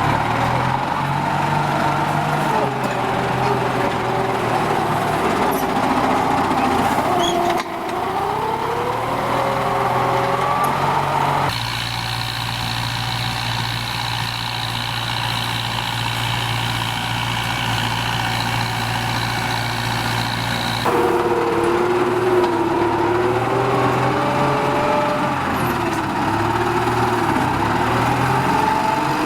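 Kubota M9540 tractor's diesel engine working under ploughing load, its pitch wavering up and down as the load changes. It changes abruptly a few times, including a steadier, even-pitched stretch in the middle.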